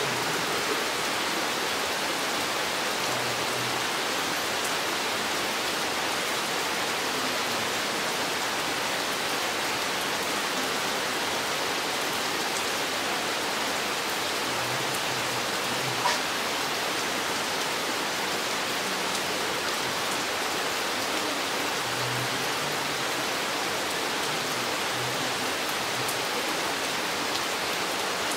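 Steady rain falling in a forest, an even, unbroken hiss, with one sharper drop hit about halfway through.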